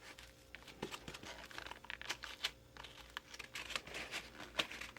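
Faint, irregular crinkling and clicking as the pleated paper element and metal parts of a cut-open oil filter are handled.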